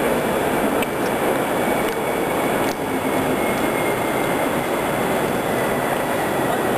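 Steady, even rushing background noise of a large indoor hall, with faint clicks about a second in and again near three seconds.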